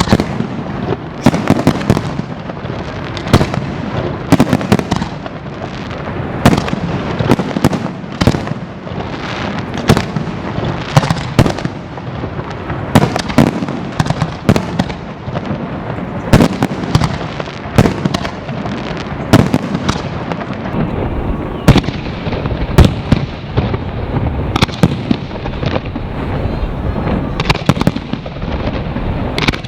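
Aerial fireworks display: a rapid, continuous barrage of shell bursts and crackling bangs, several a second, over a steady rumble of launches and echoes.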